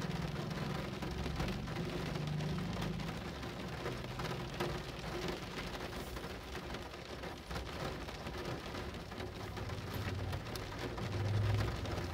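Steady rain, with many distinct drop hits on a surface, over a low rumble that grows louder near the end.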